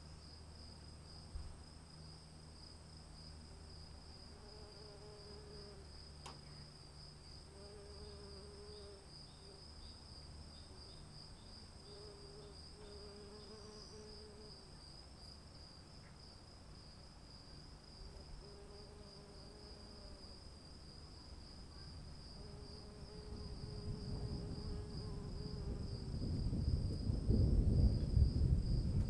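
Steady, fast-pulsing chirring of insects, with a repeated low call about a second long every few seconds. In the last few seconds a low rumbling noise swells up and becomes the loudest sound.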